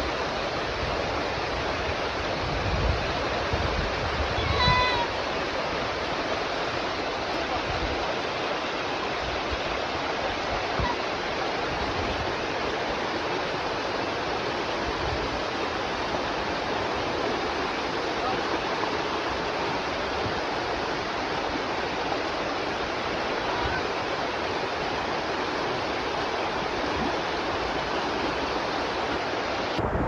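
Fast mountain river rushing over rocks in white-water rapids: a steady, unbroken rush of water.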